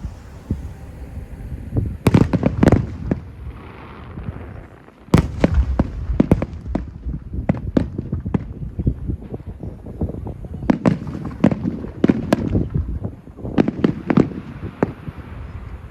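Fireworks going off: a rapid string of bangs and crackling bursts, with a thick flurry of explosions starting about five seconds in.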